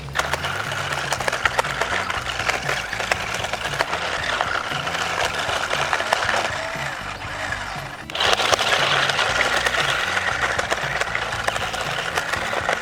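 Toy stunt RC car's small electric drive motors whirring hard, with rapid clicking and clattering from its plastic body and hollow tyres on the ground. The sound breaks off briefly just before the 8-second mark, then resumes louder. A music track with a steady bass line plays underneath.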